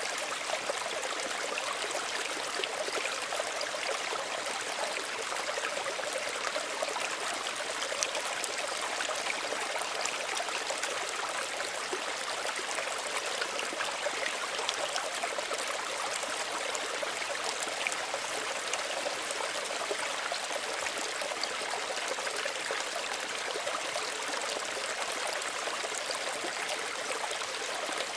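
Small stream running and trickling over stones, a steady gentle rush with many small splashes and gurgles.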